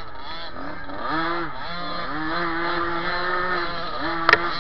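Small children's dirt bike engine revving up and down as the rider works the throttle, its pitch climbing and then holding steady for a second or two at a time. A single sharp knock comes near the end.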